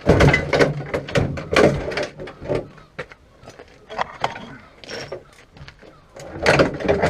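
A series of irregular knocks and bangs, bunched in the first couple of seconds, a few more midway and another loud cluster near the end.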